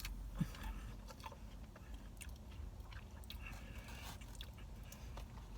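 A person chewing a mouthful of fried takeout food close to the microphone, with scattered small crunches and wet mouth clicks; one sharper click about half a second in.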